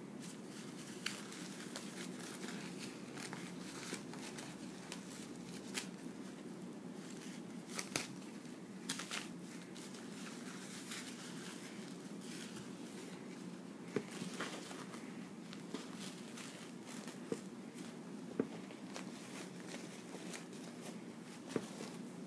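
Disposable diaper crinkling and rustling as it is handled, with a scattering of sharp clicks and taps over a steady low background hum.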